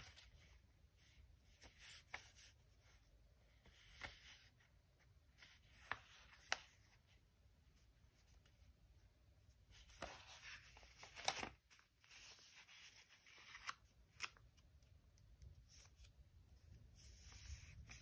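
Quiet paper handling: sheets of printed paper being folded, creased and pressed flat by hand, with scattered faint crinkles and taps. A longer, louder rustle comes about ten to eleven seconds in.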